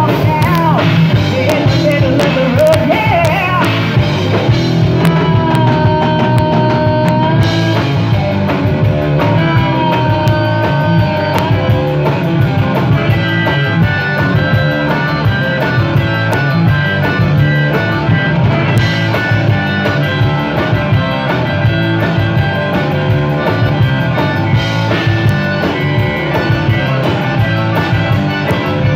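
Live rock band playing loud: a woman singing lead over electric guitar, bass guitar and a drum kit, with two long held notes about six and ten seconds in.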